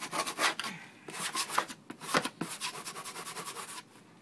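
Quick, irregular strokes of a hand tool scraping soaked old flooring residue off the floor. The strokes ease off and go quieter near the end.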